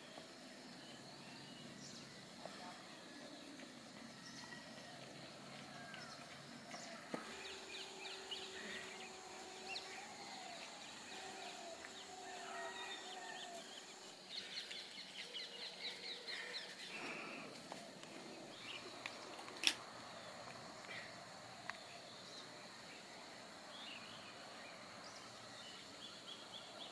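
Faint outdoor ambience with birds chirping: short gliding calls and quick trills over a steady high hiss, with one sharp click about twenty seconds in.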